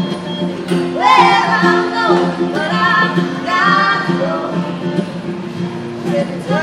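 A young woman singing a melody with sustained, gliding notes over a steadily strummed acoustic guitar.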